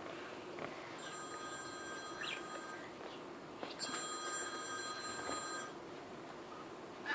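A telephone ringing twice, each ring a steady multi-tone electronic trill lasting about two seconds, about a second apart. A budgerigar gives a few short chirps between and after the rings.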